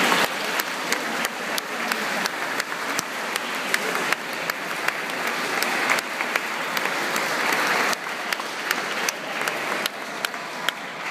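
Church congregation applauding: many hands clapping together in a dense, sustained round that tapers off somewhat in the last few seconds.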